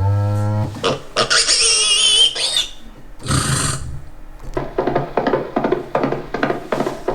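A string of odd noises: a short low grunt, then a high wavering squeal, a brief noisy burst, and from about halfway on a run of quick, rhythmic taps.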